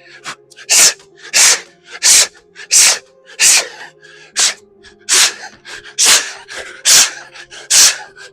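A man's sharp, forceful exhalations in a steady rhythm, about one every 0.7 seconds, as he works through fast plyometric bodyweight exercises.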